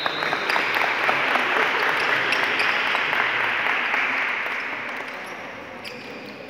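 Spectators applauding, a dense patter of claps that fades away over the last two seconds.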